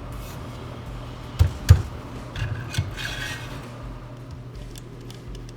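Metal parts of a bike repair stand being handled during assembly: a few sharp knocks and clunks, the loudest a pair close together, then a short scraping rub, over a low steady hum.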